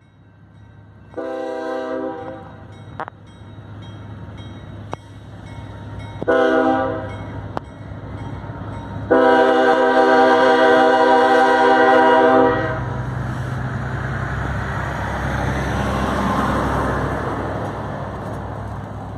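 Diesel freight locomotive's air horn sounding three blasts: a long one, a short one, then a longer one of about three and a half seconds, over the steady low hum of the locomotives' diesel engines. After the horn a loud low rumble sets in, swelling and easing off.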